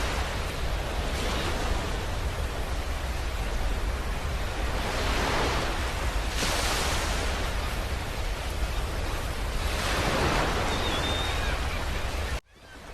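Continuous rushing noise over a deep rumble, swelling and easing every few seconds like surf: a space 'sound' track presented as the sound of the star UY Scuti. It cuts out abruptly for a moment near the end.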